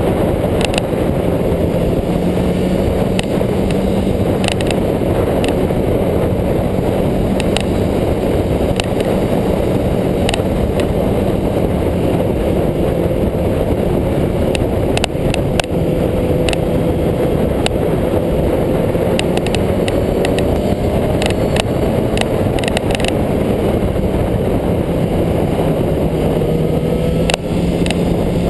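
Sportbike engine running at road speed, its note slowly rising and falling with the throttle, under a heavy rush of wind on the microphone.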